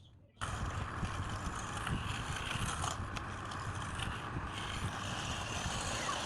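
Woodworking power tool running with wood against it: a steady scraping whir with a low rumble, starting abruptly about half a second in.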